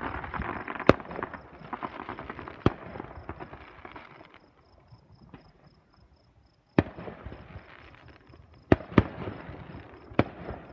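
Aerial fireworks going off: about six sharp booms, two of them close together near nine seconds, with crackling and hiss between. There is a quieter lull in the middle.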